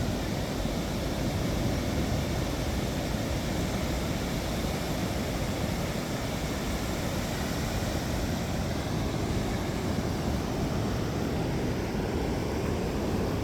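Steady rush of ocean surf mixed with wind on the microphone, an even low roar with no single wave crash standing out.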